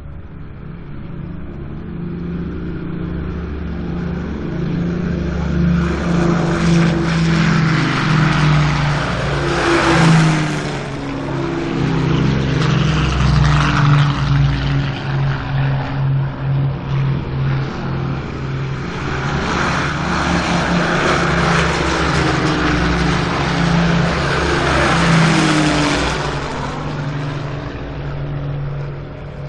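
Heinkel He 111 bombers taking off, their twin piston engines at full power. One passes close about ten seconds in, and another about three seconds before the end, each with a falling pitch as it goes by.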